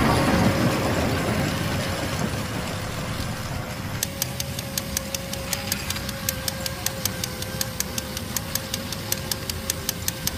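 Small DC motor of a toy train made from drink cans, running with a steady whine. A low rumble at the start fades over the first couple of seconds. From about four seconds in, a quick even clicking sets in at about five ticks a second, from the train running on its can-lid wheels.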